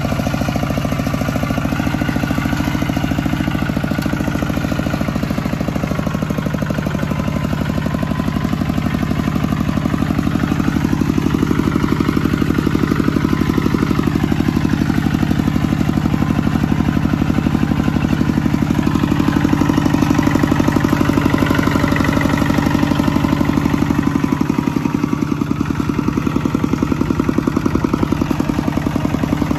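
Single-cylinder diesel engine of a two-wheel walking tractor running steadily under load with a rapid, even beat as it pulls a levelling board through wet paddy mud.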